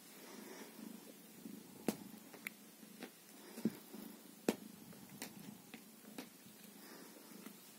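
Domestic cat purring softly while being stroked. A scattered series of small sharp clicks, the loudest sounds here, comes in from about two seconds in.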